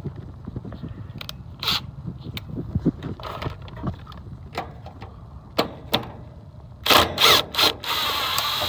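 Cordless drill backing out the screw that holds the capacitor bracket: scattered clicks and knocks of handling, a few short trigger bursts, then a steady run of about a second near the end.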